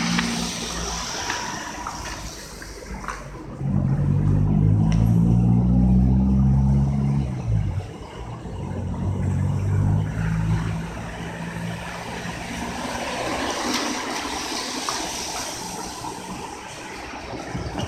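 Road traffic: car engines and tyres on a wet road. One vehicle's engine is close and loudest from about four to eight seconds in, then fades, leaving a steady wash of tyre noise.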